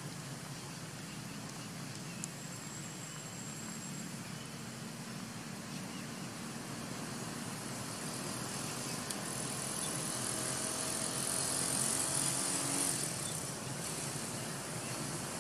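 Steady outdoor background noise with a low hum, a brief high tone about two seconds in, and a high hiss that swells midway and drops off near the end.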